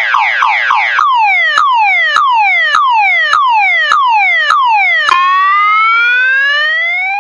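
Multi-tone electronic alarm siren. It opens with fast falling 'pew' sweeps, about four a second, and about a second in changes to slower falling sweeps, each starting with a click, about one every 0.6 s. About five seconds in it switches to one long rising whoop.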